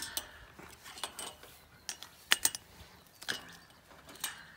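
Steel trampoline springs clinking and rattling as one is stretched and unhooked from the frame with a homemade wooden lever tool: a series of irregular sharp metallic clicks.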